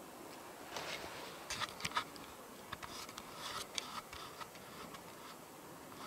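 Handling noise close to the microphone: soft rustling with a cluster of sharp clicks about a second to four seconds in, over faint steady hiss.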